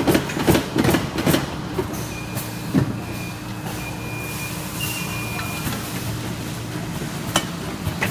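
Automatic weighing vacuum bag-packing machine running with a steady mechanical hum. A quick run of clacks and knocks comes in the first three seconds, a thin high whine holds from about two to five and a half seconds, and one more sharp knock comes near the end.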